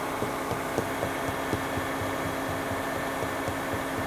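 Steady hum of the tire service's liquid-ballast pumping equipment running while Rim Guard beet-juice ballast is fed through a hose into a compact tractor's rear tire at the valve stem. A few light clicks come from the fill adapter being worked on the stem.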